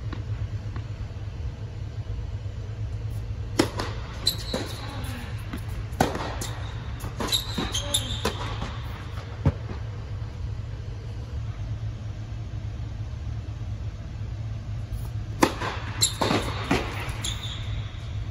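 Tennis ball struck with racquets and bouncing on an indoor hard court: sharp echoing pops in two short spells of rally, with a few brief high squeaks of shoes on the court. A steady low hum fills the air-supported dome underneath.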